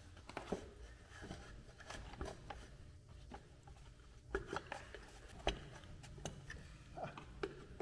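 Scattered small clicks and knocks of a screwdriver and hands working at an ATV's plastic air box and its mounting, irregular and faint, with the sharpest knocks a little past the middle.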